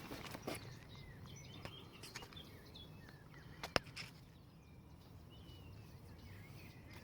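Faint outdoor ambience with small birds chirping now and then, and one sharp click a little before four seconds in.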